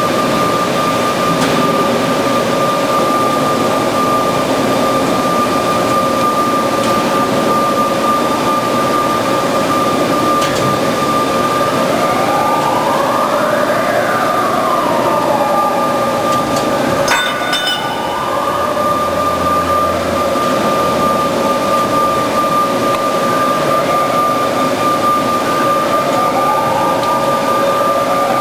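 Band saw running with a steady whine over dense mechanical noise, its pitch gliding up and back down a few times; a sharp click about 17 seconds in.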